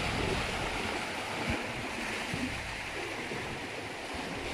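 Steady wash of moving water, with a couple of faint low knocks.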